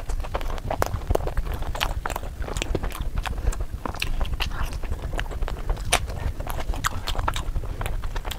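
Close-miked mouth sounds of eating chicken curry with rice: wet chewing and lip smacking, a dense run of irregular clicks and squelches.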